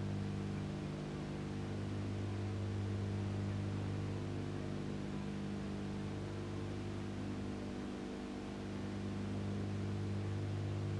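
Steady electrical mains hum, a stack of even unchanging tones, under a layer of hiss on the sound track of an archive TV recording with audio faults.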